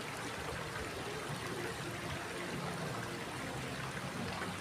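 Stream water flowing steadily with an even rushing sound.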